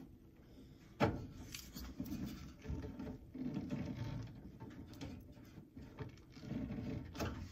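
Cloth rubbing and brushing against the phone's microphone as it is handled, with a sharp knock about a second in, then irregular rustling and scuffing.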